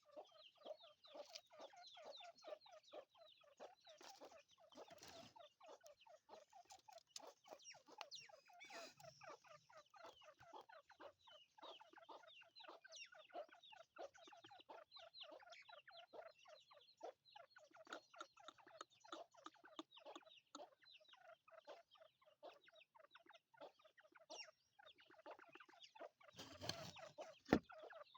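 A group of teetar (partridge) chicks peeping continuously, many short falling chirps overlapping in a rapid stream. A single sharp knock near the end.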